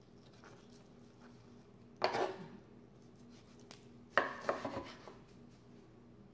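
Kitchen utensils and dishes knocking together in two short clattering bursts, about two seconds in and again about four seconds in, with a few light taps in between.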